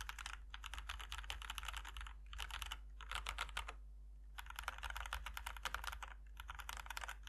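Fast typing on a mechanical keyboard with linear switches, in quick runs of keystrokes broken by short pauses.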